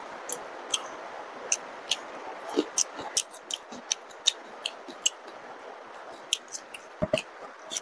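Wet mouth clicks and lip smacks of someone chewing soft luchi and curry with the mouth closed, irregular, two or three a second. About seven seconds in come two dull knocks.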